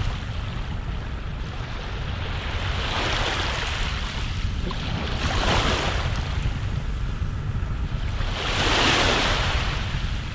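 Sea surf: waves washing in three times, each swell rising and falling away, over a steady low rumble of wind.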